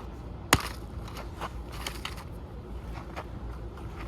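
Clicks and knocks from a broken camcorder's parts being handled and pried at: one sharp, loud click about half a second in, then lighter, scattered clicks.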